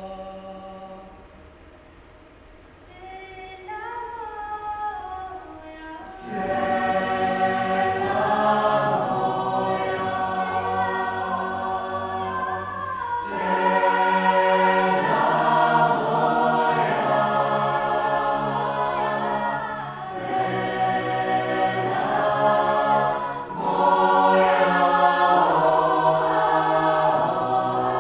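Mixed choir of men's and women's voices singing in harmony. It starts softly with only a few voices, then the full choir comes in about six seconds in and keeps singing loudly, swelling and easing in phrases.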